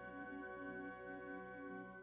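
Background music: sustained, held tones with a gently pulsing lower line, fading out at the end.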